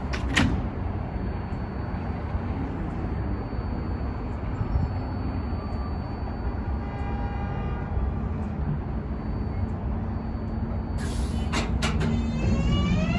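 R188 subway train standing with its doors shut, a steady low rumble with a sharp thump just after the start. About eleven seconds in comes a short hiss of air and a few sharp clicks, then the traction motors start a rising, stepped whine as the train begins to pull away.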